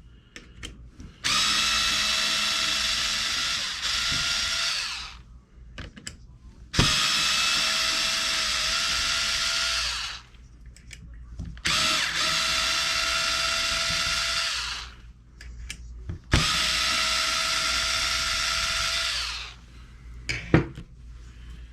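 Power driver backing out screws from an RC truck's plastic chassis. It runs in four separate steady whines of about three seconds each, one per screw, with small clicks and handling noises between them.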